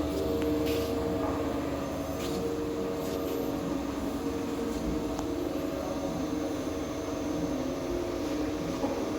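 Ribbon blender's electric worm-gear motor running steadily: a constant machine hum with several steady tones.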